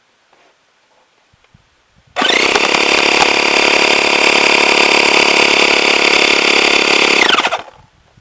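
Small electric air compressor running steadily for about five seconds, pumping air through a tire valve stem into a two-liter plastic bottle; it starts abruptly about two seconds in and winds down near the end.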